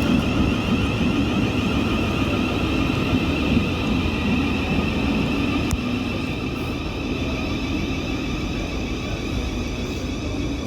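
Electric train running steadily, a rumble with a steady high whine, easing slightly about six seconds in.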